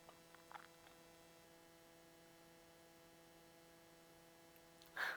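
Near silence: room tone with a steady faint electrical hum, broken by a few tiny clicks early on and one short soft burst of noise near the end.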